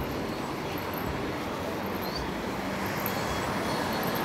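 Steady city street noise: a low, even rumble of traffic.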